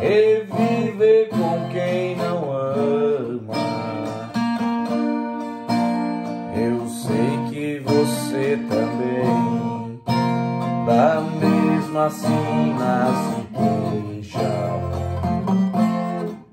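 Nylon-string classical guitar played with the fingers, chords and single notes ringing on continuously.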